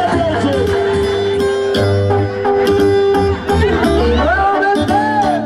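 Music playing: long held melody notes over a steady low bass line, with a wavering melodic line near the end.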